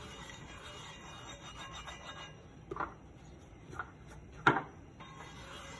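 A brush rubbing oil over a cast iron griddle in scratchy strokes for the first two seconds or so, then three short knocks in the second half, the last the loudest.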